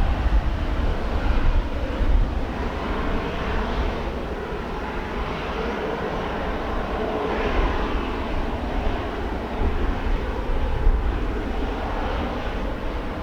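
Aircraft engine noise mixed with strong, gusty wind buffeting the microphone as a heavy, uneven low rumble.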